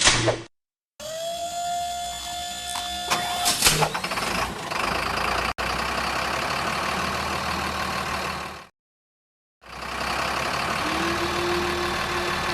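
Dubbed-in heavy machinery sound effects for a railroad crane: an engine running with a motor whine that slides up in pitch and then holds, a loud clank about four seconds in, and abrupt cuts to silence about half a second in and again near nine seconds.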